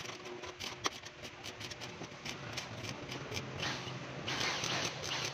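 Electric arc welding on a galvanized 1x1 steel tube frame, crackling and sputtering irregularly as a joint is full-welded.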